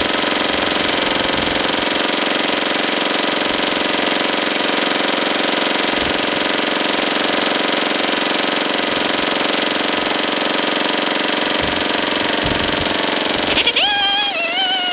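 An engine running at a steady, unchanging speed throughout, loud and even.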